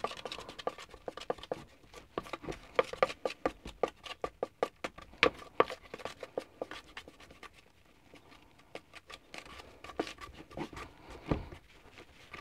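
Powdered tile grout being mixed with a little water in a plastic bowl: quick, irregular scratching and tapping against the bowl, easing off for a moment about two-thirds of the way through.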